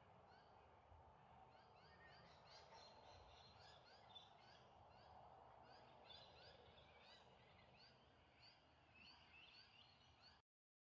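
Faint dusk chorus of small animal calls: many short rising chirps repeating at several pitches over a low hiss of background noise. It cuts off abruptly near the end.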